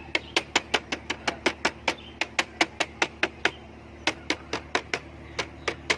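Loose front visor of a Honda Activa scooter rattling: rapid, evenly spaced plastic clacks, about five a second, with a short break about three and a half seconds in. The rattle comes from the visor sitting loose in its mounting, the fault to be cured with rubber strips under it.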